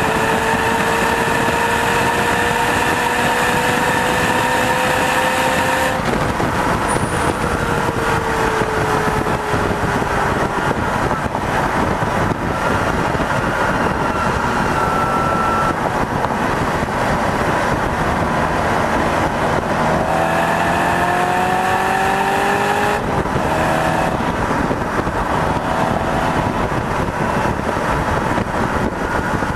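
A car driven hard on a race track, heard from a camera on its hood: a loud, steady rush of wind and road noise with the engine note underneath. The engine note climbs slowly for about six seconds, changes abruptly and then sinks over the next few, and climbs again about two-thirds of the way through before another abrupt change.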